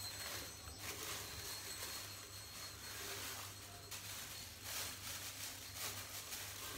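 Clear plastic packaging bag crinkling and rustling as it is unwrapped and handled, with a few sharper crackles.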